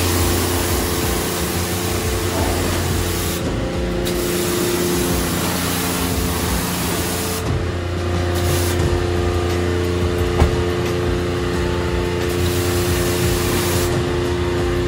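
High-pressure water spray from a self-service car wash wand hitting a car, with a steady hum underneath. The spray stops for a moment about three and a half seconds in, again at about seven and a half seconds, and near the end.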